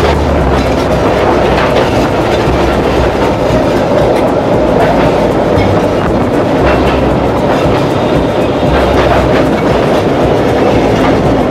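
Electric tram running along the street, heard from inside the car: a steady rattle and rumble with scattered clicks and knocks from the wheels and body.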